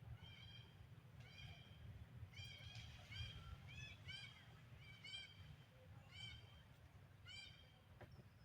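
Baby monkey giving a series of short, high-pitched calls, about a dozen, each rising and falling in pitch, one or two a second, the cries of a distressed infant monkey.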